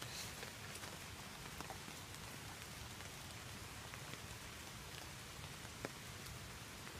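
Light rain falling steadily on the leaves and woodland floor, an even patter with a few single drop ticks and one sharper tick near the end.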